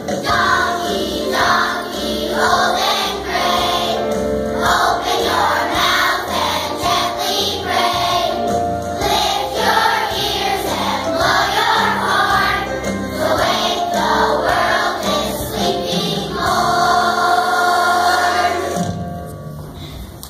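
A children's choir singing a song with musical accompaniment, ending on a long held note that fades out near the end.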